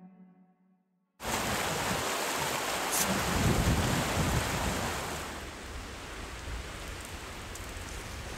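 Strong wind buffeting the microphone, a rushing noise with heavy low rumbling that cuts in suddenly about a second in and eases a little after the first few seconds.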